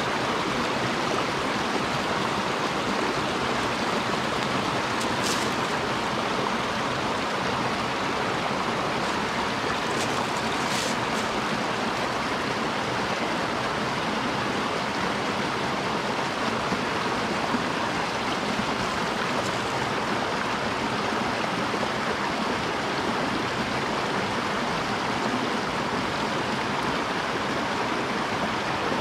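Small mountain headwater stream running over little cascades into a rocky pool: a steady, even rush of water.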